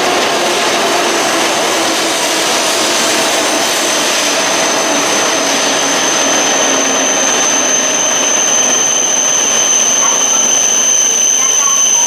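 E5 series Shinkansen train pulling slowly into the platform: a steady rush of the passing cars, with a thin high whine that grows stronger about halfway through.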